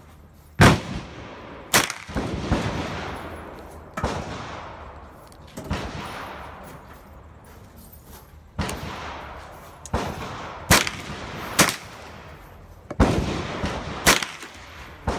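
Gunshots, about a dozen in irregular succession, each followed by an echoing tail; some shots are sharp and loud, others softer with longer echoes.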